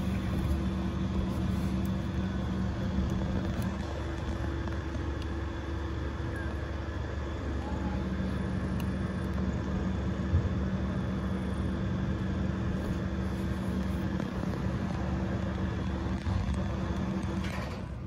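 Steady machine drone with a low rumble and a hum, like a motor or engine running close by, that starts abruptly and stops shortly before the end; it is loud enough to drown out the mother cat's purring.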